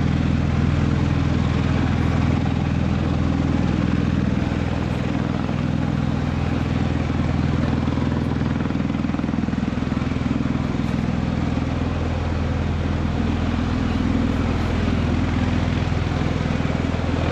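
MV-22 Osprey tiltrotor's proprotors and engines, a steady deep drone with a strong low hum that dips slightly about five seconds in.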